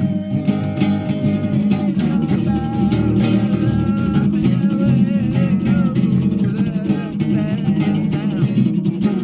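Acoustic guitar strummed in a steady rhythm, with a wavering melody line riding above it from about three seconds in.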